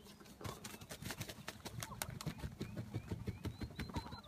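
A fast, irregular run of soft knocks and thumps, with a faint string of short rising chirps in the second half.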